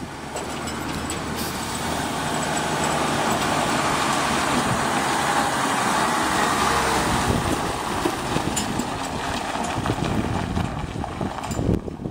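M931A2 5-ton 6x6 military tractor truck, with its Cummins 8.3-litre turbodiesel six, driving past over gravel. It grows louder as it passes about halfway through, then fades as it pulls away.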